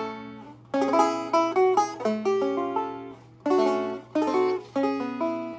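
Six-string banjo (banjitar) being picked: bright plucked notes in short phrases, each note ringing and fading, with fresh phrases starting just under a second in, about three and a half seconds in and near the end. A faint steady hum sits underneath.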